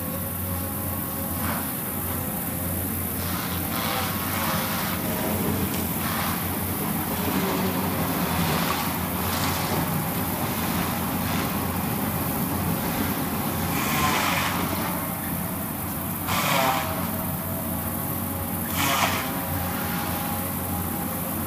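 Caterpillar excavator's diesel engine running steadily under load while its boom-mounted disk grinder attachment grinds a stump, with short bursts of grinding and chipping several times, loudest in the second half.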